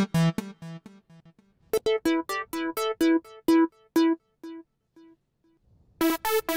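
GarageBand software-instrument loop playing short, repeated synth-lead notes, switching sound as the preset changes. The first sound stops about a second in, the Blip Side lead plays from just under two seconds in and dies away, and a brighter, fuller Cheerful Trance lead comes in near the end.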